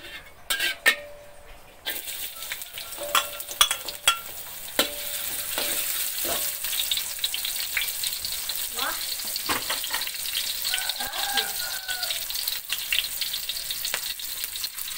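Chopped shallots, garlic, chili and ginger sizzling and crackling in hot oil in a wok. The sizzle comes in suddenly about two seconds in as they hit the oil. A metal spatula clinks and scrapes against the wok, loudest in the first few seconds.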